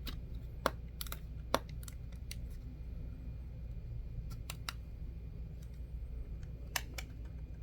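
Scattered light clicks and taps of batteries being turned around in a Blink video doorbell's battery compartment, about eight in all, the sharpest about a second and a half in and near the end, over a steady low hum.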